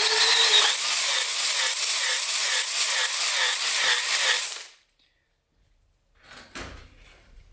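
Electric drill spinning a cylinder hone in an LS engine bore, its pitch wavering up and down in an even rhythm about twice a second. It stops suddenly about four and a half seconds in.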